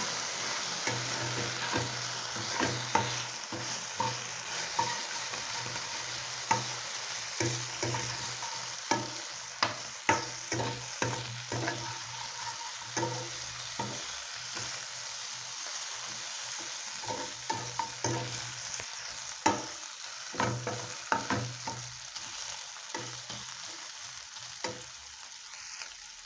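Beef sizzling in hot oil in a pan while it is stirred with a utensil, with irregular sharp scrapes and clacks of the utensil against the pan over the steady sizzle.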